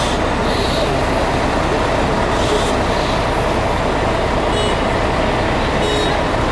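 Steady drone of idling bus engines and traffic at a busy bus station.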